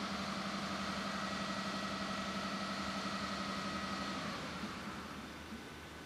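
SNCF BB 9200 electric locomotive giving a steady hum as it moves slowly, over a general station rumble. The hum stops about four seconds in.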